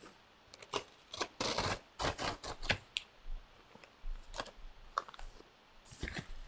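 A sheet of paper being handled, bent and creased in the hands: a run of short crinkling rustles in the first few seconds, then a few more scattered ones.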